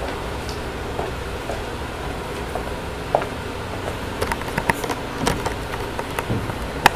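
Steady low room hum. From about halfway through come scattered light knocks and clicks as a hand-held camera is picked up and worked off its tripod, ending in a sharp click near the end.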